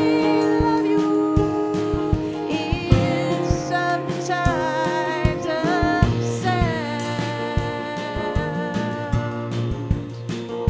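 A woman singing a slow song, her voice wavering with vibrato, over two acoustic guitars playing together.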